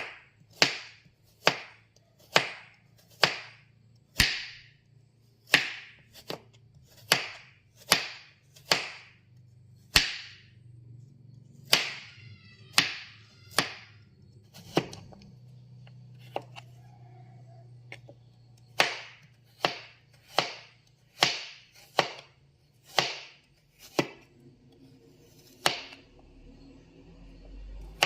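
Kitchen knife thinly slicing fresh turmeric root, each cut ending in a sharp knock on the cutting board, about one a second, with a pause of a few seconds a little past midway.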